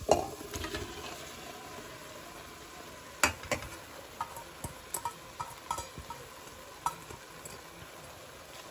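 Cauliflower florets and chopped greens tipped into a steel pot of hot curry masala, landing with a burst and a short sizzle. Then a low sizzle goes on while a metal utensil clicks and clinks against the steel pot a dozen or so times as the vegetables are stirred.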